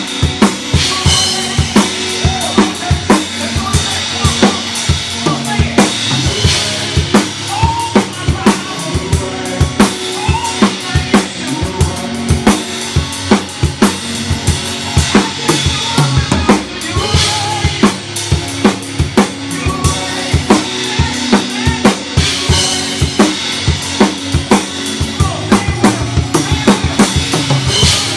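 Drum kit played in a live gospel song: a busy, steady pattern of kick and snare hits with cymbal crashes every few seconds, over sustained notes from the rest of the band.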